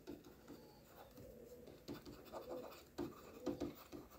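Faint, irregular scratching and tapping of a stylus writing on a tablet screen.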